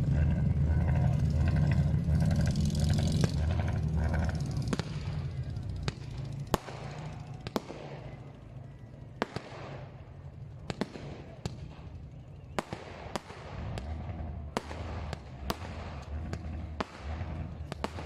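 Loud motorcycle engine noise for about the first four seconds, then fireworks: a string of about fifteen sharp, irregularly spaced bangs, each with a short echo.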